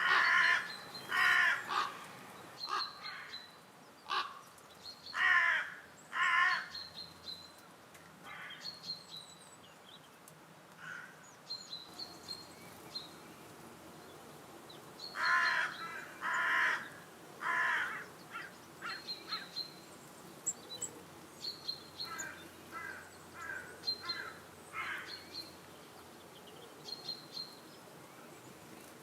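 Harsh, caw-like bird calls in groups of two or three, with fainter ones between, over short high chirps from a smaller bird repeating throughout.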